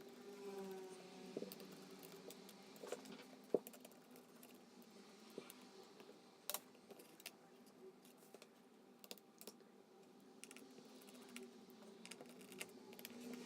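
Scattered small clicks and taps of tools and small parts handled during a laptop disassembly, with the sharpest click about three and a half seconds in, over a faint steady hum.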